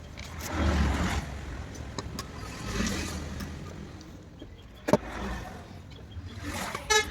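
Handling noise as a fan's circuit board is fitted back into its plastic cabinet: rustling and low knocks, a sharp click about five seconds in, and a short chirp near the end.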